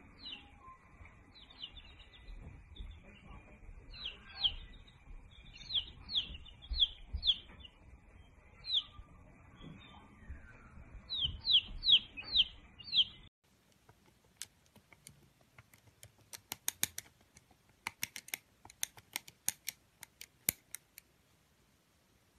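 A baby chick peeping over and over: short high peeps, some in quick runs of four or five, which are the loudest sounds here, ending abruptly about thirteen seconds in. After that comes a series of sharp, dry clicks, irregular and sometimes in quick succession.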